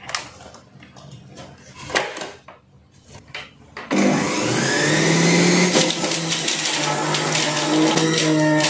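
Kitchen Cook 7-in-1 electric juicer switched on about four seconds in, its motor running loudly with a humming pitch that wavers as carrots are juiced. A few light clicks and knocks come before it starts.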